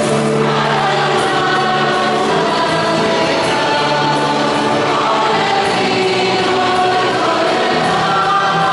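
Choir singing liturgical music in long held notes that move from chord to chord, with music underneath.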